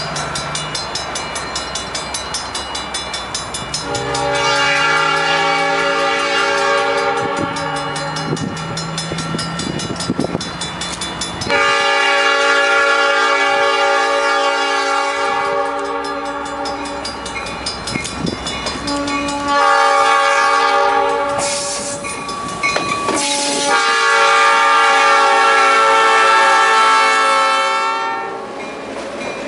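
Diesel locomotive's multi-tone air horn sounding two long blasts, a short one and a long one, the grade-crossing signal, as the train approaches. A rhythmic clatter of the train runs underneath, heard alone for the first few seconds.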